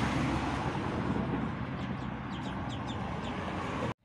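A brood of ducklings peeping, with several short, high, falling peeps standing out near the middle; the sound cuts off abruptly just before the end.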